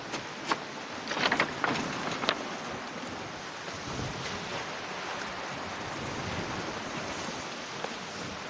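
Steady rush of sea and wind on a stony beach, with a few sharp clacks of cobbles knocking together in the first couple of seconds.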